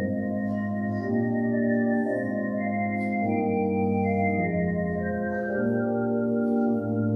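Organ playing slow, sustained chords, each held steadily before moving to the next, with the top line rising and then falling.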